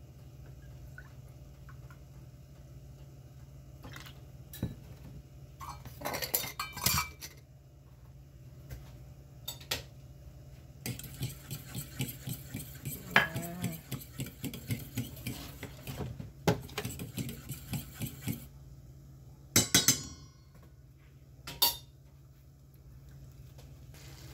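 Eggs and milk being beaten with a utensil in a stainless steel bowl: a run of rapid clinking against the bowl's sides lasting about seven seconds, from about halfway through. Scattered single clinks of the metal measuring cup and bowl come before and after it.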